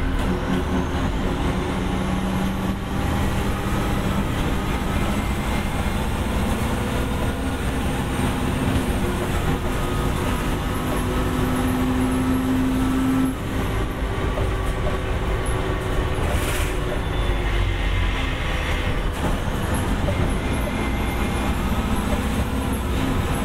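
1989 Gillig Phantom transit bus under way, its Detroit Diesel Series 50 diesel engine running with a steady drone. The engine note climbs and then drops off sharply about halfway through.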